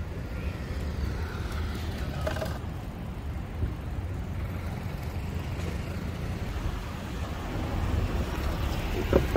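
Steady traffic and road noise heard from a vehicle moving through city streets, with a continuous low rumble. The noise swells slightly near the end as a pickup truck draws alongside.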